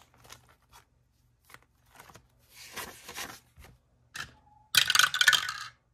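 Paper dollar bills rustling and being handled, with light clicks, then near the end a 12-sided die clattering down through a dice tower for about a second.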